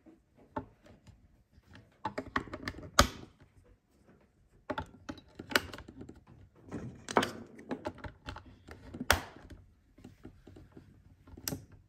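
Irregular clicks and clatter of a flashlight being handled while its batteries are changed, with a few sharper plastic clacks spread through.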